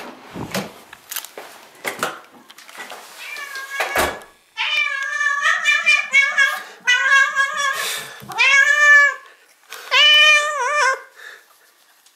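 A black-and-white domestic cat meowing again and again in long, rising-and-falling calls, greeting its owner back after a long absence. The calls begin about four and a half seconds in. Before them come a few clicks and knocks, the loudest about four seconds in.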